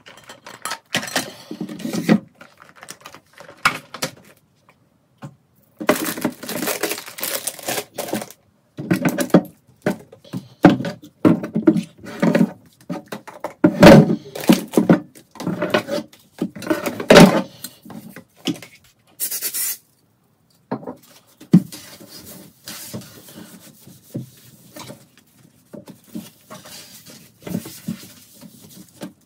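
Plastic organizer bins and toiletry bottles being lifted out of a bathroom cabinet and set down, with irregular knocks and clatters. Near the middle there is a short hiss, followed by softer rubbing as the emptied cabinet shelf is wiped clean.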